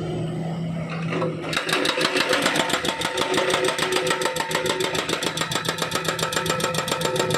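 Hydraulic breaker on a Volvo wheeled excavator hammering into thick asphalt, starting about a second and a half in with rapid blows, roughly eight a second, over the excavator's diesel engine running.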